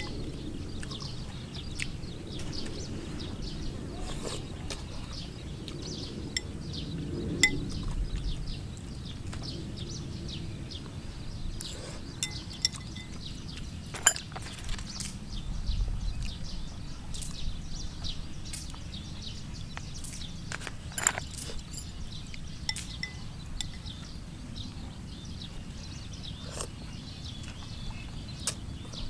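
Metal chopsticks clinking against a soup bowl at scattered moments, among the sounds of someone eating soup: sipping and chewing.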